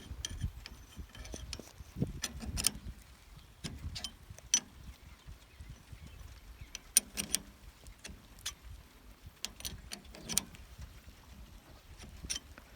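Scattered metal clicks and clinks at irregular times from a screw-type roller chain breaker being worked on heavy conveyor chain as it presses a pin out, over a low rumble; the sharpest click is about halfway through.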